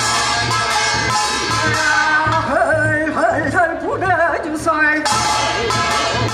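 Korean folk work-song performance: a wavering, ornamented sung melody over a steady drum beat of about two strokes a second.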